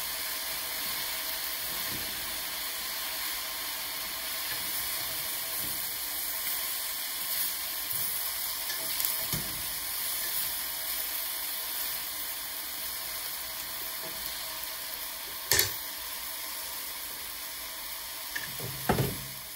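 Shredded purple cabbage sizzling in a hot stainless-steel sauté pan as it is stirred with a wooden spatula, a steady hiss. One sharp knock comes about three-quarters of the way through, and a few knocks follow just before the end.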